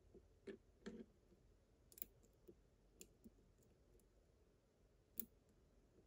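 Faint, scattered metallic clicks of a lock pick working the wafers in the keyway of a slider cam lock, held under light tension from a tension wrench. The clicks come singly, a second or so apart.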